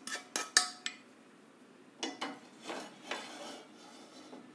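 Spoon scraping and tapping against a pan as dry-roasted semolina is emptied into a bowl: a quick run of ringing clinks in the first second, then a few softer scrapes about two to three seconds in.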